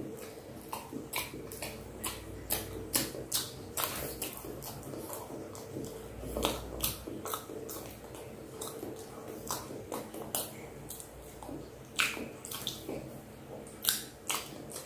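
Close-up mouth sounds of chewing soft boiled purple sweet potato: irregular wet clicks and lip smacks, a few of them louder near the end.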